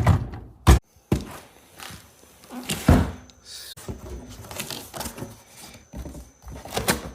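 Cardboard box and packing being pulled and handled while a tool is worked out of a tight box: a few dull thunks and knocks with rustling of cardboard between them.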